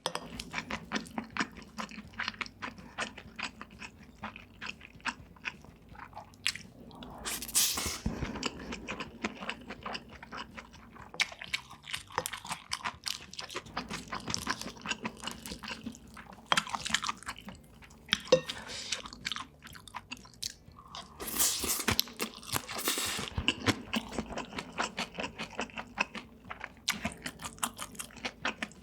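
Close-miked chewing and biting of food, a dense run of quick crunchy clicks, with two louder, longer noisy stretches about 7 seconds in and again about 21 seconds in.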